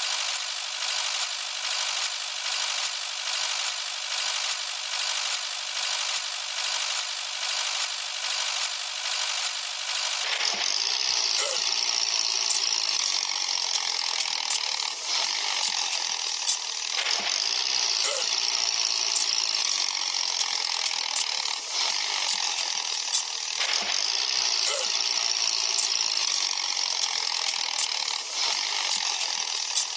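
Small motor and gearbox of a DIY model tractor running with a steady clicking, ratcheting whir. About ten seconds in it grows a little louder, with a high whine that swells every few seconds.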